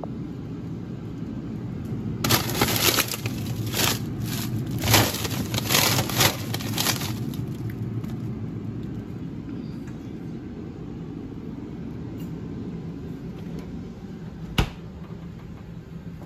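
Open refrigerator-freezer running with a steady low hum. From about two to seven seconds in, a run of sharp crackling and crinkling from frozen plastic food bags being handled, and one sharp click near the end.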